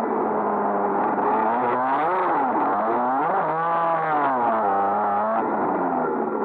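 Go-kart's small engine running under the driver, its pitch rising and falling twice around the middle as the throttle eases and opens again, then settling back to a steady note.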